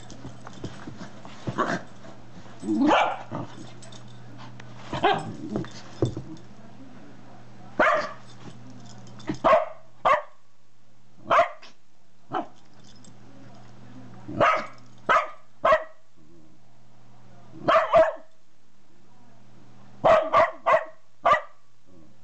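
A dog barking in play, trying to get the other dog to play. The barks come in short, sharp bursts, mostly in twos, threes and fours, and the calls in the first few seconds are longer and rougher.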